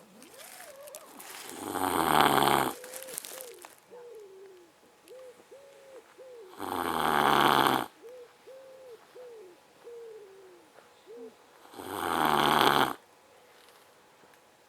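Newfoundland dog snoring in its sleep: three loud snores about five seconds apart, with faint, short, wavering whistles in between.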